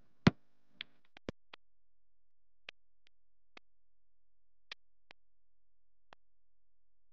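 A string of short, sharp clicks at uneven intervals over dead silence. The first, just after the start, is loud and the rest are faint.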